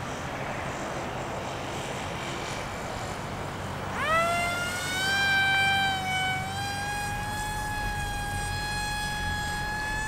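Electric motor and propeller of an XK A180 F-22 Raptor RC plane flying overhead. At first there is mostly wind rushing on the microphone; about four seconds in the motor throttles up sharply into a high whine with overtones, and its pitch then keeps rising slowly.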